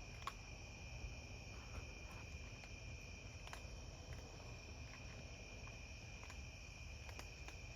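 Faint, steady chorus of crickets on a late-summer night, an unbroken high trill, with a few faint scattered ticks over it.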